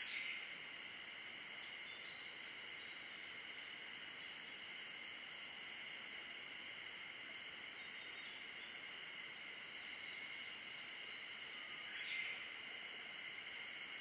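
Dense, steady chorus of calling animals forming a high two-toned drone, with faint bird song above it. A louder nearby call stands out at the start and again near the end.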